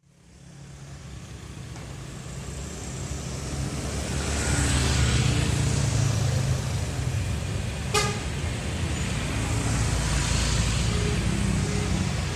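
Heavy intercity buses' diesel engines rumbling with hissing road and traffic noise, growing louder over the first few seconds and swelling as vehicles pass. A single brief sharp sound comes about eight seconds in.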